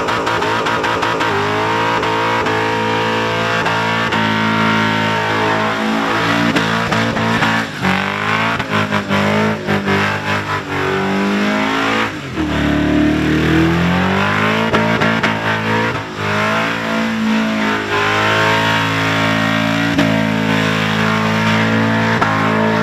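Supercharged Holden Commodore's engine held at high revs through a burnout, its pitch bouncing up and down as the throttle is worked. The revs drop briefly about halfway and climb again, with a hiss of spinning tyres underneath.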